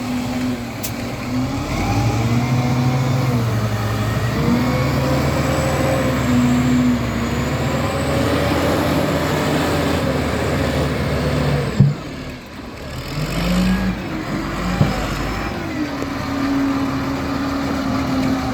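Heavy construction machine's diesel engine working under load, its pitch rising and falling as it revs up and down. A sharp bang about twelve seconds in, with a smaller knock a few seconds later.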